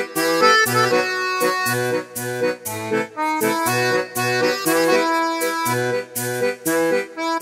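Background music: a lively tune of short notes over a bass line.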